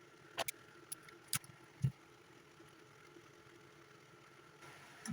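A few sharp clicks of small hand tools at work on an amplifier's wiring board, followed by a single dull knock a little later.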